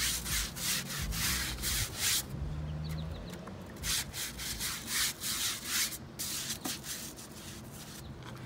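Stiff nylon-bristle brush scrubbing the boards of a weathered wooden gate, working in oxalic acid wood brightener. Runs of quick back-and-forth scraping strokes, with a pause of about two seconds in the middle.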